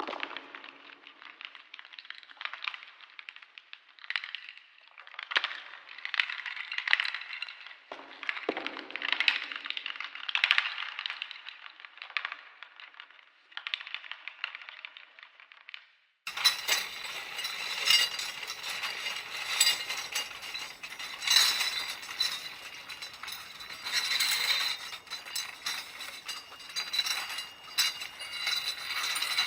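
Designed horror sound effect of metal chains rattling and clinking, with many small metallic clicks and knocks. About halfway through it switches suddenly from a muffled, dull rattle to a brighter, denser jangling and clinking.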